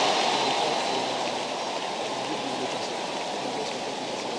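Large crowd applauding, the applause slowly dying down.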